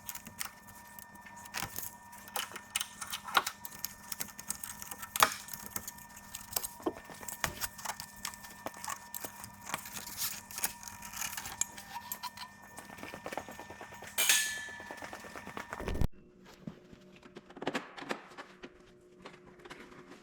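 Fast-forwarded shop work: light metallic clinks and rapid clicking of tools over a steady hum, with a brief rushing sound near the three-quarter mark, then an abrupt change to a quieter background.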